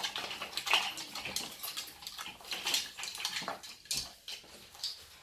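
Macaw playing with a hanging toy of wooden blocks and plastic pieces: irregular clattering, clicks and knocks as the pieces swing and bang together.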